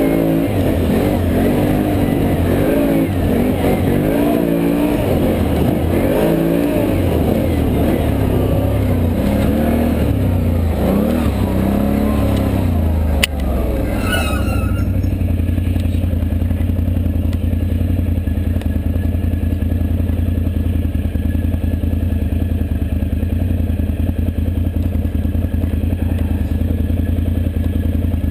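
Can-Am Renegade ATV's V-twin engine revving up and down as it rides a dirt trail, then settling to a steady idle once the machine stops, about halfway through. A single sharp click comes just before it settles.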